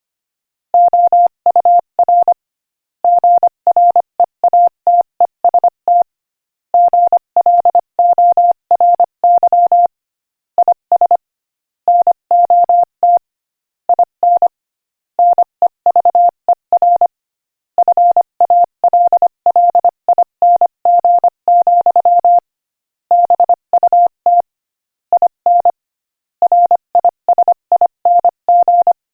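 Morse code sent at 25 words per minute as a single steady beeping tone, keyed in short dots and longer dashes, grouped into letters and words with brief pauses between the groups.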